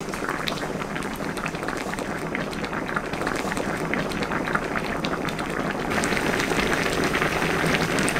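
Mackerel and kimchi stew in thick red sauce bubbling in a stainless steel pan, a steady simmer of many small pops and crackles that grows a little louder about six seconds in.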